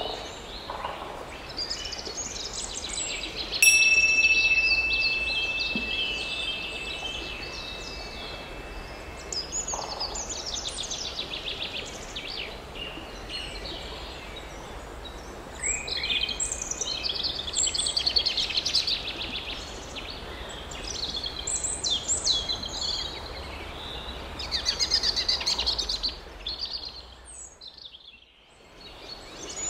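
Several birds singing, with many chirps and trills. About four seconds in, a chime is struck once and rings at one clear pitch, fading over about five seconds. Near the end the sound drops away for a moment.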